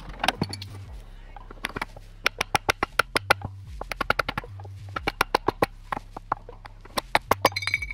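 Quick runs of sharp taps and knocks, several a second, over low background music with a repeating bass. A short squeak near the end.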